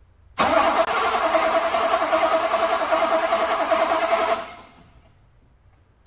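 Starter cranking the Mercedes 500SEC's M117 V8 for about four seconds, starting abruptly and then dying away, without the engine catching. The coil is firing but, by the diagnosis that follows, the original ignition coil is not producing enough high voltage to start the car.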